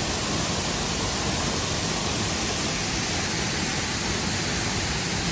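Waterfall rushing: a steady, dense hiss of falling water at an even level throughout.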